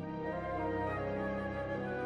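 Symphony orchestra playing a slow, sustained passage: held chords over a steady low tone.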